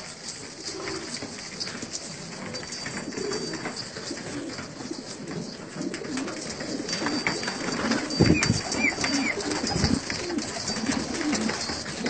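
Domestic pigeons cooing, overlapping low coos running on without pause, with a few louder thumps around eight to ten seconds in.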